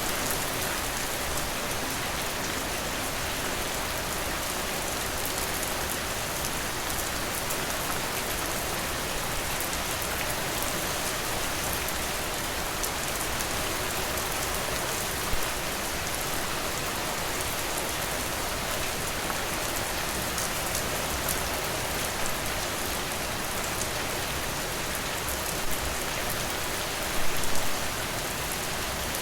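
Steady rain falling, an even hiss with a few louder drop hits, a short cluster of them near the end.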